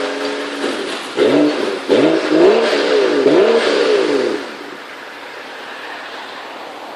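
BMW 335i ActiveHybrid 3's turbocharged straight-six idling through an aftermarket Remus exhaust, then revved in free rev: a short blip about a second in, followed by several quick revs that rise and fall in pitch. About four and a half seconds in the engine sound stops, leaving a steady hiss.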